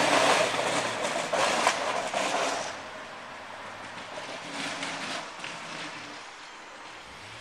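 Pickup truck with a front snow plow driving past close by and away while plowing the lot, its engine and the blade working the snow loud for about the first three seconds, then fading. A smaller swell comes about five seconds in as the plow pushes snow up into the pile at the corner.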